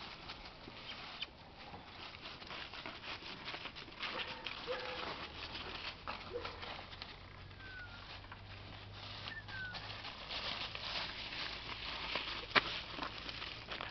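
Footsteps of a person and a wolf hybrid walking through dry fallen leaves, a steady crunching and rustling. A couple of faint short chirps come in the middle, and a sharp click near the end.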